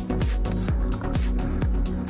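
Electronic dance music with a steady kick drum, about two beats a second, over sustained synth tones.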